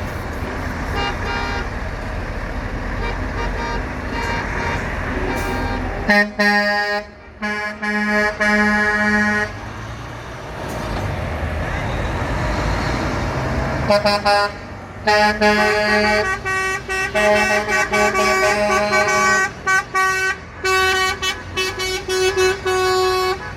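Convoy trucks sounding their horns as they pass over the rumble of traffic. A run of horn blasts starts about six seconds in. A longer stretch of many short, repeated blasts runs from about fourteen seconds on.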